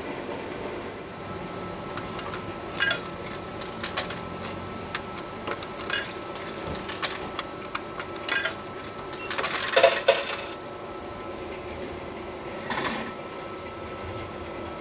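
Coins being dropped one at a time into a vending machine's coin slot, each landing with a sharp click or clink in the coin mechanism, with a longer rattle about ten seconds in.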